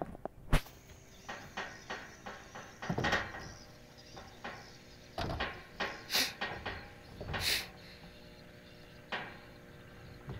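Wooden knocks, bumps and scrapes of heavy cargo being shifted forward across the plank deck of a wooden longboat, with a sharp click about half a second in.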